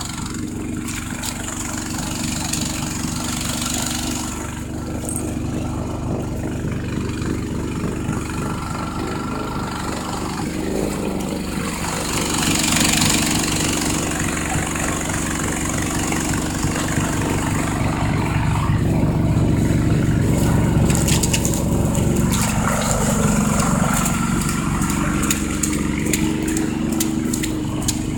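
Snowblower engine running steadily, getting louder about twelve seconds in, with a run of light clicks near the end.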